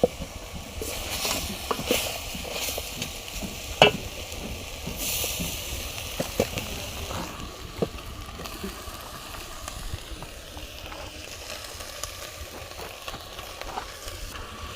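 Francolin meat sizzling in a pot as the last of its cooking water boils off, stirred, with a few sharp knocks against the pot.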